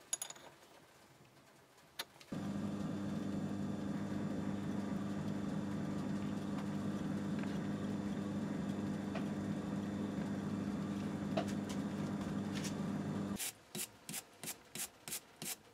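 A couple of light clicks, then a Myford ML7 lathe starts about two seconds in and runs steadily while a knurling tool rolls a diamond pattern into a brass nut. It stops abruptly near the end and is followed by a quick series of brush strokes sweeping brass swarf off the knurled nut.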